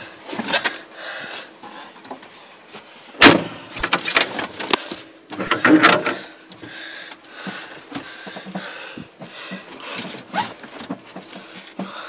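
Cab windows of an International Harvester 1255 XL tractor being swung open: clunks and rattles from latches and glass frames, the loudest about three seconds in and again around five to six seconds, over the steady hum of the running tractor.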